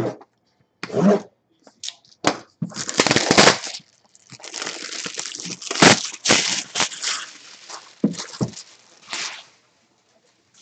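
Sealed trading-card box packaging being torn open and handled: irregular bursts of tearing and crackling, with a few sharp knocks.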